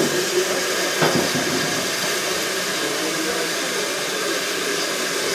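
Steady hiss of steam escaping from a standing steam locomotive, LMS Jubilee class 4-6-0 No. 45596 'Bahamas', with a single knock about a second in.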